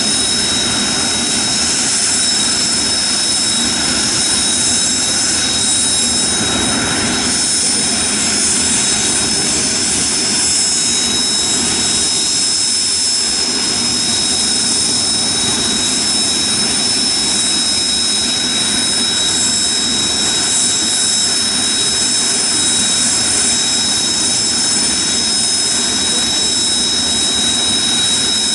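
Kawasaki T-4 jet trainers' twin turbofan engines idling together on the ramp: a loud, steady rush with several high, level whining tones.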